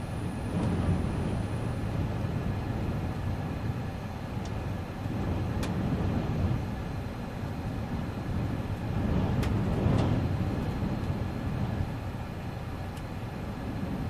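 Strong wind gusts buffeting a car, heard from inside the cabin: a low rumble that swells about a second in, around six seconds and again around nine to ten seconds, with a few sharp ticks.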